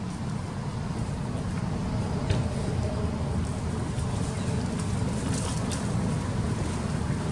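A steady low rumble with no clear pitch, broken by a few faint sharp clicks about two seconds in and again past the middle.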